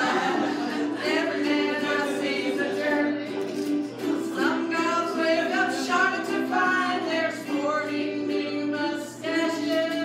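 Live singing with strummed ukulele accompaniment, a song in progress.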